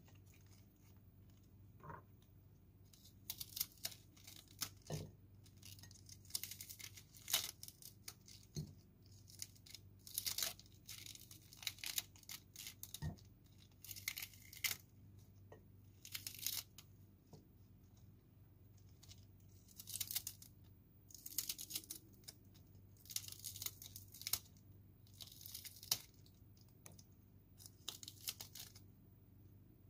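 Crisp lettuce leaves being cut and pulled apart in the hand with a small knife: short crackling snaps in irregular runs, with a few soft knocks in between.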